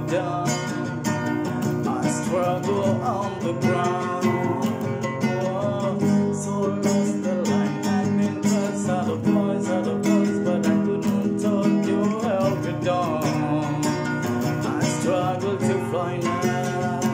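Acoustic guitar strummed in chords, with a man singing along over it.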